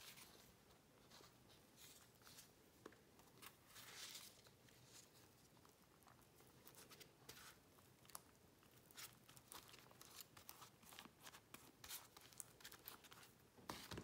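Faint rustling and crinkling of paper strips being handled and smoothed by hand while working papier-mâché, in many short soft rustles that come thicker in the second half.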